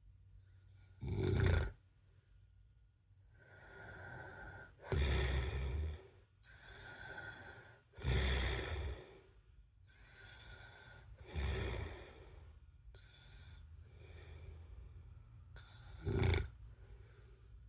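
A man snoring in his sleep: five loud snores, roughly every three to four seconds, with quieter breaths between them.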